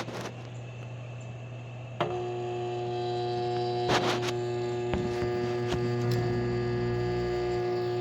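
Compressor of a 2016 LG 8,000 BTU portable air conditioner starting up about two seconds in: a sudden rise to a steady hum with several clear pitched tones, over a lower hum that runs throughout. A few faint clicks follow.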